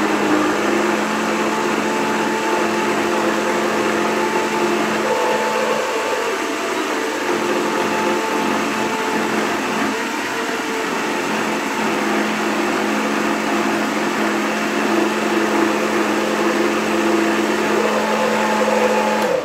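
High-powered Vitamix blender motor running steadily as it purees roasted pumpkin, with a constant hum, then cutting off at the very end.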